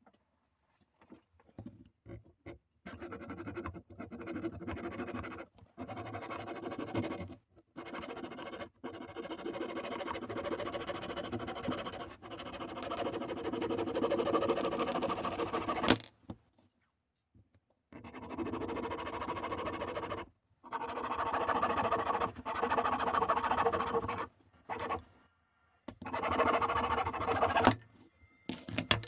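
Scratching and scraping of a hand tool working wood or metal, in a series of runs of one to four seconds with short pauses between them.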